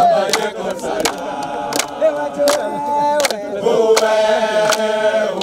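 A group of men singing a chant together in long held notes, with steady hand clapping keeping the beat.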